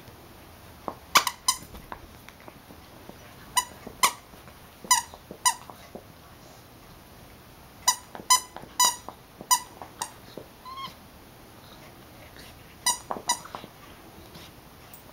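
Plush dog toy's squeaker squeaking under a Siberian husky puppy's bites: about thirteen short, sharp squeaks, mostly in pairs, with a quicker run of five in the middle.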